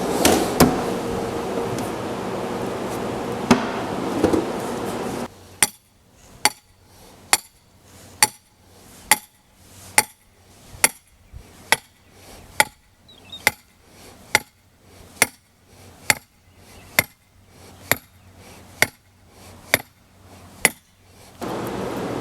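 Hammer blows driving a short length of black iron pipe into the ground: a steady run of about eighteen sharp strikes, a little under a second apart. Before them come a few scattered knocks over a steady hum.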